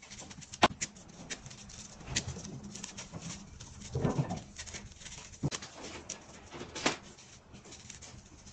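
Blocks of freeze-dried pet food snapped and crumbled by hand: dry cracking and crunching, with sharp cracks about half a second in and just before seven seconds. About four seconds in, a short low call-like sound.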